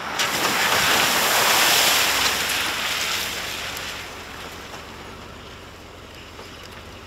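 Ford F-150 pickup tires spinning and spraying gravel as the truck pulls away on a gravel lot. It is a loud rushing hiss that starts suddenly, peaks about a second or two in, and fades as the truck moves off.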